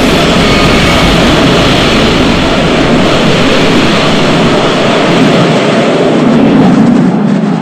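Designed MechaGodzilla sound effect: a loud, steady, jet-engine-like mechanical rumble.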